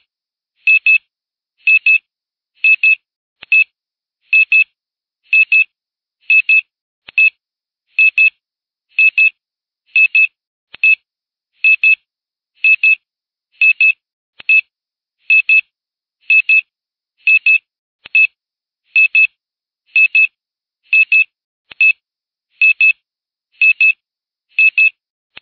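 Electronic beeping: short, high-pitched double pips repeating steadily about once a second, like an alarm-clock beep.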